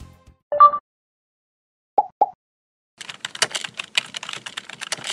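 Computer keyboard typing sound effect: a fast, uneven run of key clicks for the last two seconds. Before it come a short pitched blip about half a second in and two quick pops near two seconds in.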